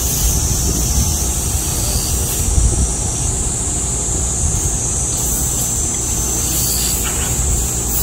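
Summer cicada chorus: a loud, steady high-pitched buzz that holds without a break, over a low rumble of wind on the microphone.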